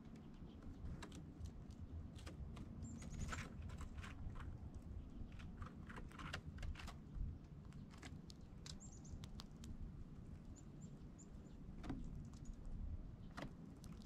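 Faint, very short high chip notes of small songbirds, a few times, among scattered light clicks and taps.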